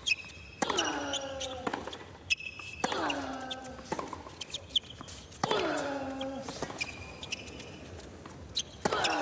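Hard-court tennis rally: the ball is struck back and forth with sharp racket pops and bounces. On about every second shot a player lets out a grunt that falls in pitch over about a second, four times in all. Short shoe squeaks come in between.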